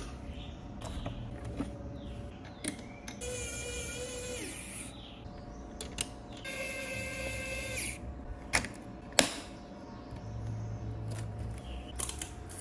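Unpacking and handling noises from a boxed computer monitor: scattered clicks and knocks, and two longer squeaking scrapes, one about three seconds in and one about six and a half seconds in.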